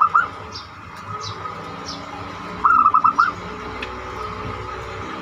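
Zebra dove (perkutut) cooing in quick runs of short staccato notes. One phrase ends right at the start and a full phrase of about five notes comes around two and a half seconds in, with faint high chirps of small birds in between.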